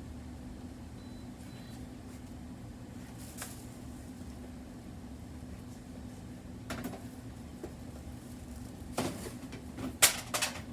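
Steady low hum with a few scattered knocks and clatters of things being handled, the sharpest and loudest just before the end.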